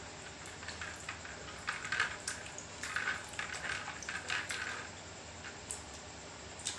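Close-up mukbang eating sounds: a person chewing, with irregular wet clicks and smacks for a few seconds.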